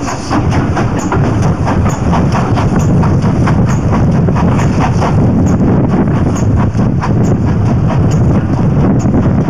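Steam locomotive working at the head of the train, its exhaust beats coming in a steady rhythm over the continuous rumble of the carriages' wheels on the rails, heard from an open carriage window.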